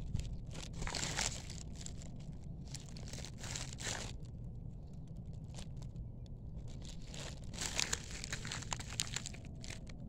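Rustling and crinkling handling noise close to the microphone, with scattered small clicks over a low steady rumble.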